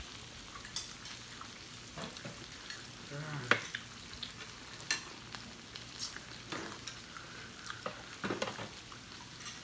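Shrimp, meat and green onions sizzling steadily on a round Korean barbecue grill with a hot pot in its centre, the grill running hot. Scattered light clicks and taps sound over the sizzle.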